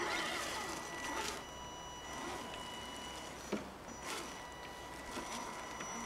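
Electric motor and drivetrain of an Axial SCX10 Deadbolt RC crawler whining steadily as it crawls over dry leaves, the pitch shifting as the throttle changes. Tyres crunch and rustle through the leaf litter in short bursts, with a sharp click about three and a half seconds in.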